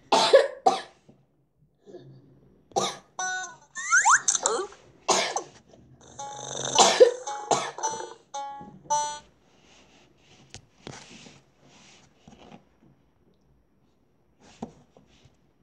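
A child coughing several times into her hand in short bursts, with a few brief chime-like tones in between and fainter coughs or breaths near the end.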